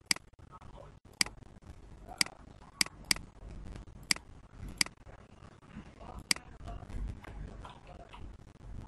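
Computer mouse button clicking, about eight sharp single clicks at uneven intervals, two of them close together a little under three seconds in.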